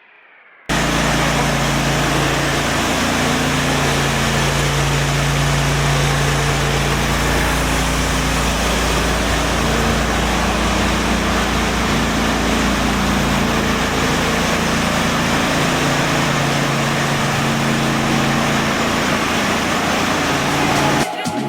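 Concrete grinder running steadily under load, grinding carpet adhesive off a concrete floor: a loud, even grinding noise with a low motor hum beneath. It starts abruptly about a second in and cuts off just before the end.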